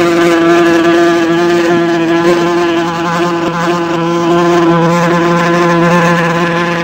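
Wasp buzzing in flight: a loud, steady buzz whose pitch wavers slightly.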